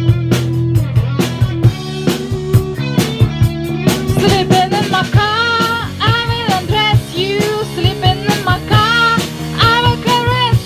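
A woman singing into a microphone from a lyric sheet over a rock accompaniment with drums and guitar. The first few seconds are instrumental with a steady drum beat, and the voice comes in about four seconds in, with long held notes that waver in pitch.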